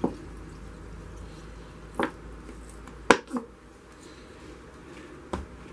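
Plastic paint bottles and cups being handled: about five short clicks and knocks, the loudest pair a little past halfway, against a quiet room.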